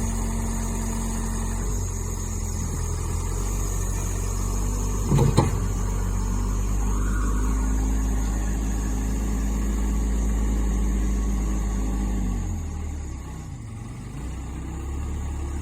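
A 1998 Case 580L backhoe loader's four-cylinder diesel engine running steadily while pushing snow, with a single sharp knock about five seconds in. Near the end the engine drops in revs, then steadies at a lower speed.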